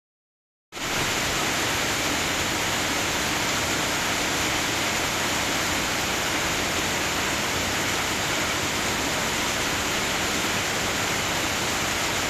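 Heavy rain pouring down, a steady dense hiss that cuts in suddenly under a second in.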